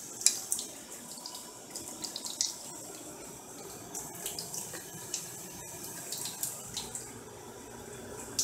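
Wet sanding of a guitar's oil finish with 2000-grit sandpaper: a steady, watery rubbing hiss with small scattered ticks and scrapes.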